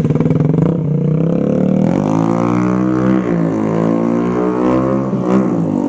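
Rusi Korak 110cc single-cylinder motorcycle engine running loud through an open SC Project-style exhaust, revved up so that its even pulsing turns into a sustained high drone that wavers slightly.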